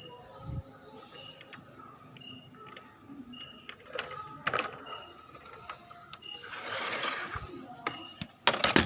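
Small electric motor and gearbox of an MN98 RC crawler whirring in short spurts, loudest about two-thirds of the way through, with sharp clicks and knocks near the end.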